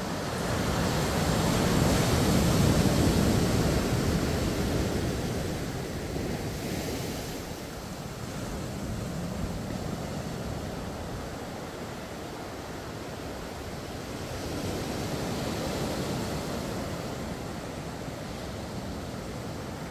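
Ocean surf breaking and washing up a sandy beach, a steady rush that swells loudest about two to four seconds in and again later on.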